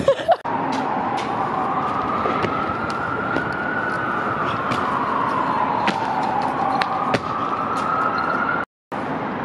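Emergency vehicle siren in a slow wail, its pitch rising, falling and rising again over a steady background of city noise; the sound cuts out briefly near the end.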